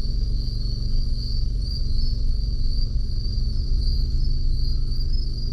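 Crickets trilling in a steady high-pitched chorus over a continuous low rumble.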